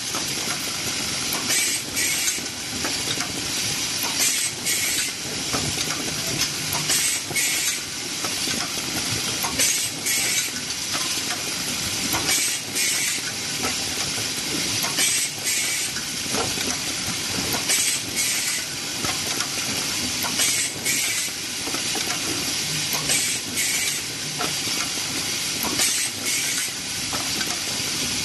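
Automatic wire spot welding machine for hook making running through its cycle: a steady mechanical clatter with short hisses of air recurring about every two and a half seconds, often in pairs.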